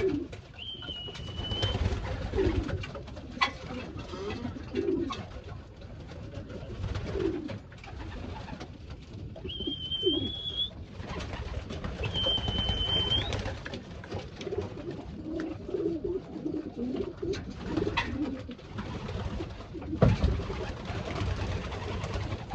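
Racing pigeons cooing in a loft, with low wavering coos throughout. A high steady whistle comes three times, and a few sharp knocks are heard, the loudest near the end.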